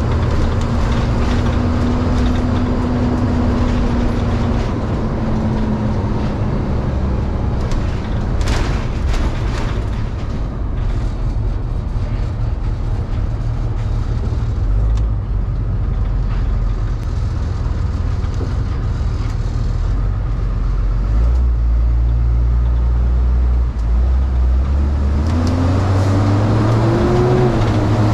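Delivery step van's engine and road noise heard from inside the cab while driving. The engine note drops about five seconds in and climbs again near the end as the van speeds up.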